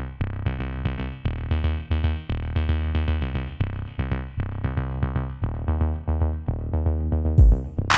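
Electronic background music with synthesizer notes over a steady bass beat, with a sharp crash-like hit near the end.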